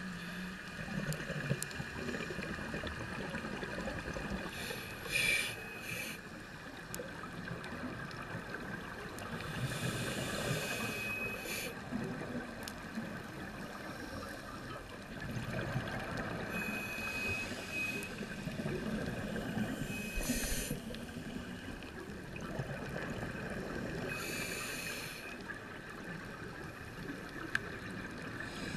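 A scuba diver breathing through a regulator, heard underwater: a steady muffled hiss, with short bursts of exhaled bubbles every four to five seconds.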